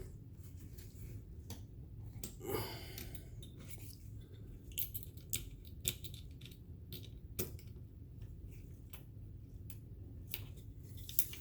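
Small scattered clicks and taps of metal pistol parts being handled and worked together as the slide release is fitted into the frame of a CZ P10F pistol.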